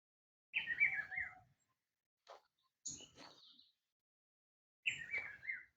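A songbird singing short phrases of quick falling notes. The same phrase comes twice, about four seconds apart, with a different, higher call between them.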